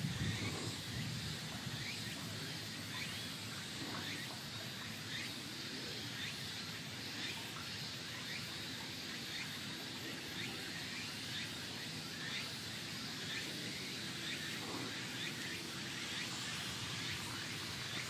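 Steady outdoor background noise with many short, high chirps scattered through it.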